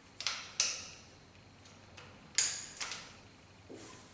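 Short snaps and rustles of a rubber band being stretched around a plastic piston block on a hydraulic disc-brake caliper: four sharp sounds, two near the start and two about halfway through.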